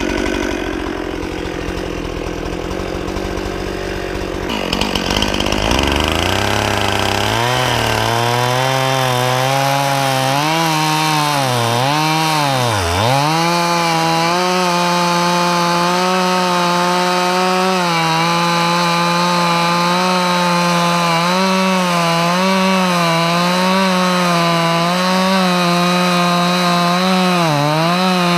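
Stihl MS 261 C-M two-stroke chainsaw cutting into a log. After a few seconds of noise the engine revs up to a high, steady pitch, which sags briefly several times as the chain bites into the wood.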